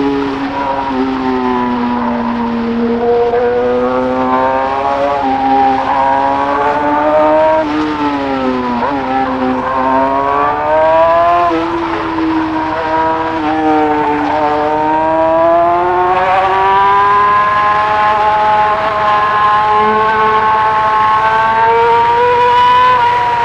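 Yamaha R6 sport bike's inline-four engine running hard under the rider. Its pitch rises and falls several times as the bike accelerates and eases off, then climbs steadily for the second half.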